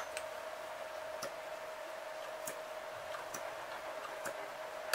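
OS 40 FSR two-stroke glow engine, freshly fitted with a new piston ring, being flipped over by hand with its propeller. It gives a handful of faint, irregular clicks as it passes through compression, a sign of decent compression.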